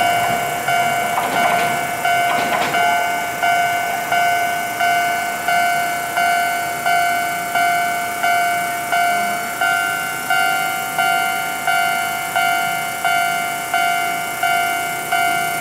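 Japanese level-crossing warning bell ringing steadily, a clanging electronic chime about one and a half strikes a second. A tram's wheels and running gear rumble along the rails under it in the first few seconds.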